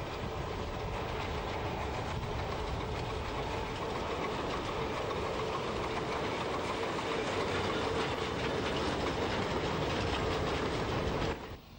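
Narrow-gauge (3 ft) peat-bog railway train running: a diesel locomotive and its wagons rattling along the track, with a steady tone through it, building slowly and then cutting off suddenly near the end.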